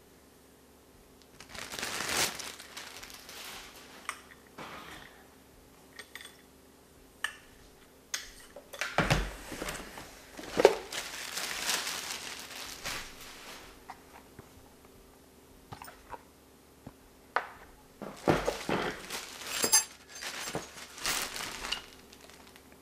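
Clear plastic bag crinkling and rustling in three main bursts, with scattered light clicks and knocks, as the packaging is pulled off a trimmer shaft.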